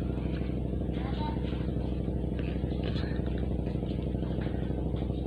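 An engine running steadily at a constant speed: a low, even drone that neither rises nor falls.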